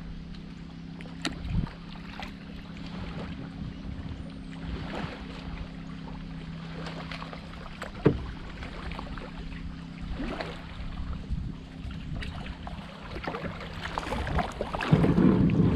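Kayak paddle strokes dipping and splashing in calm water, with a sharp knock about eight seconds in and a steady low hum under them. Near the end the plastic kayak hull runs aground on the submerged concrete boat ramp with a loud scraping grind.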